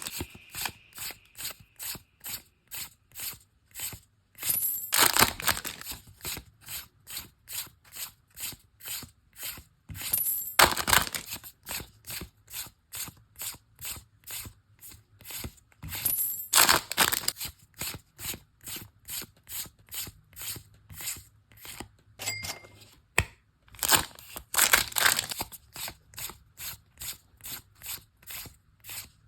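Pokémon trading cards flicked one after another in quick succession, about two a second, with a longer, louder tearing rustle every several seconds as another foil booster pack is opened.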